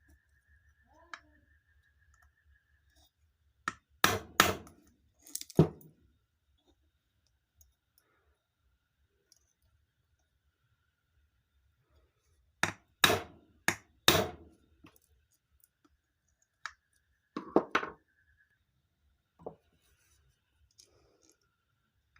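Light hammer taps on a nut held against a ceiling fan's bearing cover, knocking the top cover loose from the bearing: sharp metal-on-metal strikes in short clusters of two to four, with pauses of several seconds between.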